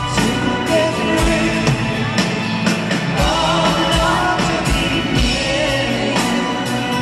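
Live band performing a slow rock anthem: a male lead singer and female backing singers singing together over a steady drum beat.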